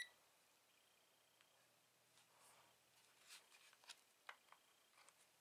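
The end of a short beep from a Klein MM600 digital multimeter right at the start: its warning that the test leads are in the wrong jacks for the selected current mode. Then near silence, with a few faint clicks from a test lead being handled and plugged into a jack in the second half.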